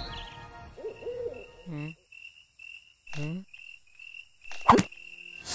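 Night ambience: an owl hooting twice, each hoot falling in pitch, over a high chirping insect call repeating about twice a second. A sharp knock comes near the end.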